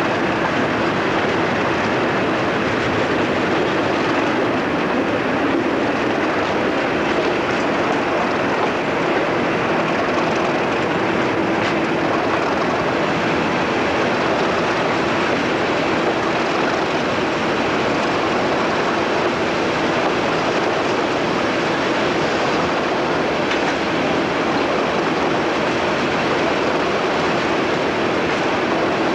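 A Class 37 diesel locomotive running at speed, heard from beside its cab window: a steady engine drone under rushing air and rail noise from the wheels.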